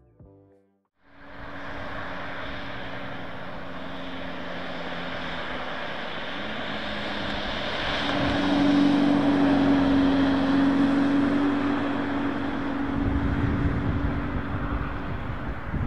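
Camouflaged 2025 Chevrolet C8 Corvette ZR1 prototype with its LT7 5.5-litre turbo V8 driving past, starting about a second in, loudest in the middle as it passes, with a deeper rumble near the end as it drives away.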